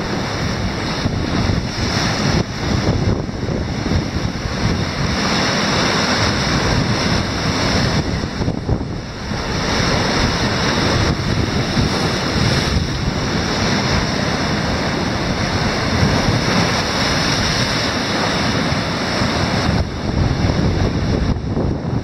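Rough sea surf breaking and foaming against large blocks of shell limestone, a continuous wash of crashing water, with wind buffeting the microphone.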